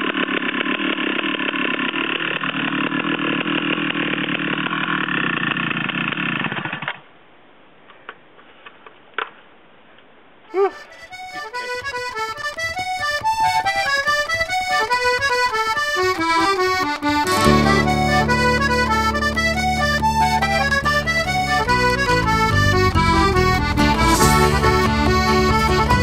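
A chainsaw mounted in an Alaskan chainsaw mill running steadily, cutting off about seven seconds in. After a few quiet seconds with faint clicks, accordion music starts, and a steady bass line joins a few seconds later.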